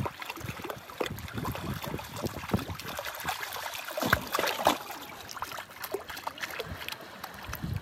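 Shallow lake water trickling and lapping among shoreline rocks, with small irregular splashes, busiest about four to five seconds in.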